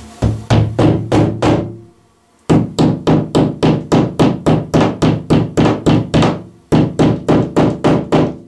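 Small hammer tapping a fixing into a freshly drilled hole in the ceiling, in three quick runs of light blows at about four a second, with a short pause between runs.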